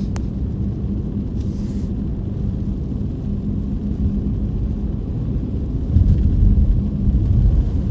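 Car being driven: steady low rumble of engine and tyres on the road, growing louder about six seconds in.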